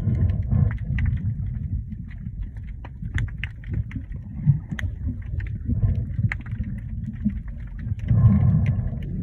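Underwater sound picked up by a camera held below the surface: a low, muffled rumble of moving water with scattered sharp clicks and crackles, swelling louder about eight seconds in.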